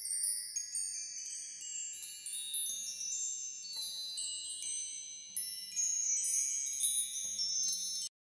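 Wind chimes tinkling: many high, bright notes struck in quick succession and ringing over one another, then cutting off suddenly near the end.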